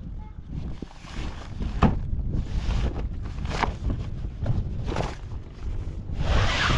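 Wind rumbling on the microphone, with a few sharp knocks and a brief rush of hiss near the end.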